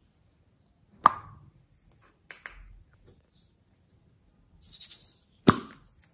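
Hard plastic slime containers clicking as they are opened and handled, a few sharp clicks with the loudest a little before the end. Shortly before that, a brief high rattling hiss as small granules are tipped from a clear plastic container into the bowl of slime.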